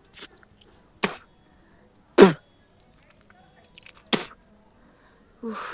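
A woman sneezing in quick succession: four short, sharp sneezes, the third the loudest. Near the end a longer breathy sound follows.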